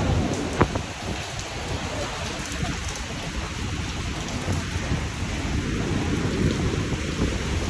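Hurricane wind and rain: a steady hiss of heavy rain with gusts buffeting the microphone in an uneven low rumble. A single sharp tap comes about half a second in.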